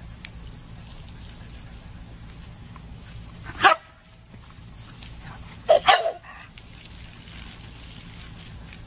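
A rough-coated collie-type dog barking at the water from a garden hose in play: one bark about three and a half seconds in, then two quick barks close together near six seconds.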